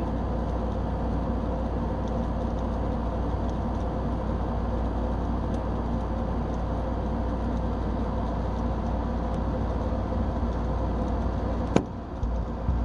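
Steady low rumble of outdoor background noise with a faint, even hum, broken by one sharp click near the end.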